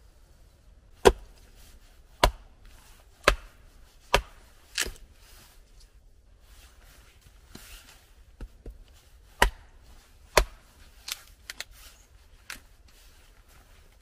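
Chopping with a blade: sharp strikes about a second apart, five in the first few seconds, then a pause with small taps, two more loud strikes and a few lighter ones near the end.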